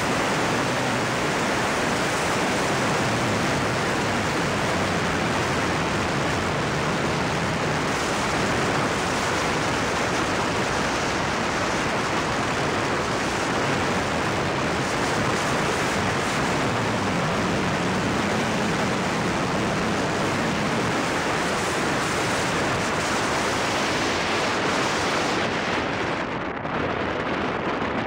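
Steady rushing wind noise on the microphone of a camera mounted on the outside of a moving car, covering any engine or tyre sound. The rush thins out near the end.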